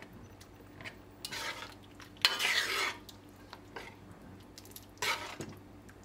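A spoon stirring thick curried chickpeas and potatoes in a metal pot: three bursts of sloshing and scraping, the loudest starting suddenly about two seconds in, with a few light clicks of the spoon against the pot between them.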